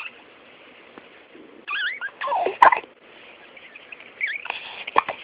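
A young pet hiccupping: a sharp hic a little over halfway through and another near the end, with short high gliding squeaks just before the first.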